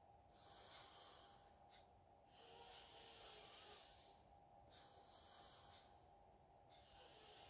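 Faint slow breaths drawn in and let out through one nostril at a time, the other held shut by a thumb or finger, in alternate-nostril breathing. Each breath is a soft hiss lasting one to two seconds, with short pauses between.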